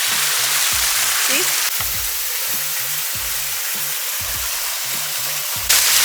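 Steady rushing hiss of a waterfall under background music with a repeating bass line and a regular beat. The water noise gets louder abruptly near the end.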